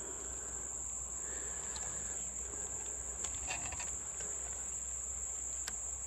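Steady high-pitched chorus of insects, one unbroken buzz, with a few faint clicks.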